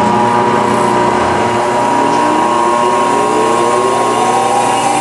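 Electric motor of a Sandt hydraulic clicker press spinning up after switch-on, a whine rising in pitch as it comes up to full speed. Under it is the steady hum of the rotary phase converter that feeds it 220 V single-phase power.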